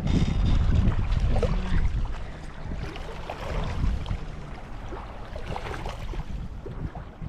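Wind buffeting the microphone, a low rumbling noise that is strongest in the first two seconds and then eases, with faint scattered clicks.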